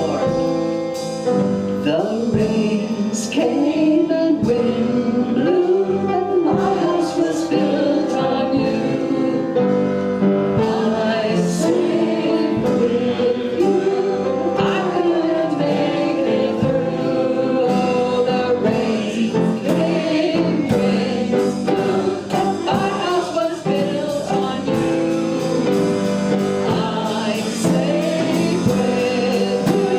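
Gospel worship song: a group of voices singing with keyboard, guitar and drums.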